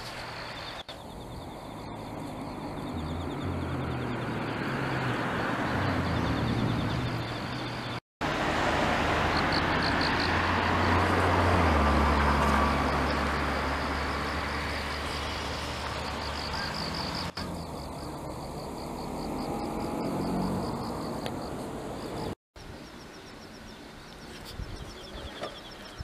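Passing road vehicles, each rising and fading over a low rumble, the loudest about halfway through, with a rapid high chirping behind them. The sound cuts out briefly twice.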